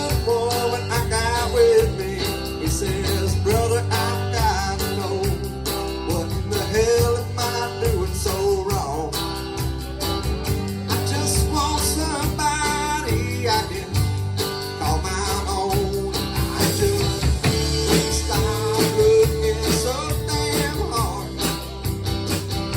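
A country-rock band playing live, with a lead vocal sung over guitars and bass.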